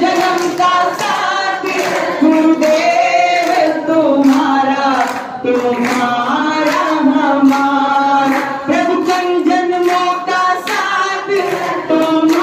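A group of voices, mostly women, singing a Hindi devotional bhajan together, with steady rhythmic hand clapping in time.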